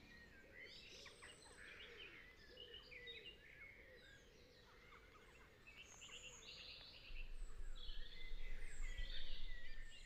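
Faint woodland birdsong: several birds chirping and trilling in a busy, overlapping mix. A low rumble comes in about seven seconds in.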